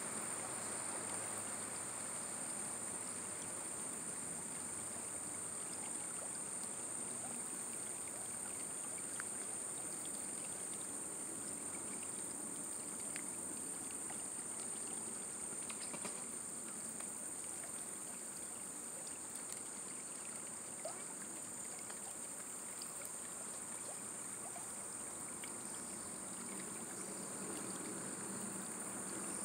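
Quiet summer river ambience: a steady, high-pitched chorus of insects over a soft, even wash of moving water.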